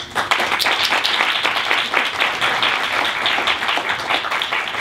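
Audience applauding, many hands clapping at once, starting suddenly and keeping up steadily.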